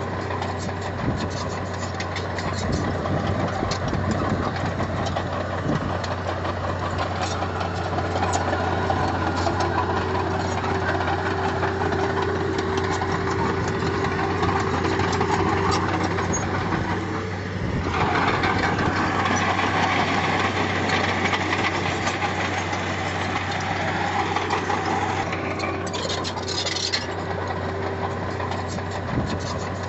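Heavy earthmoving machine's diesel engine running steadily; about 18 seconds in its sound shifts and grows a little louder, as when the machine takes on more load or throttle.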